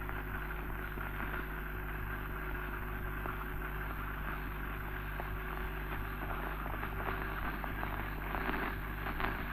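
Surface noise of a 1932 optical film soundtrack: a steady hiss and low hum with scattered crackles and clicks.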